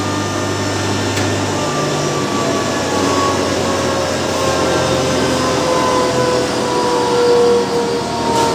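Sugar pulverizer grinding mill running loud and steady, with a whine that slowly falls in pitch from about two seconds in. A low hum drops away at about the same time.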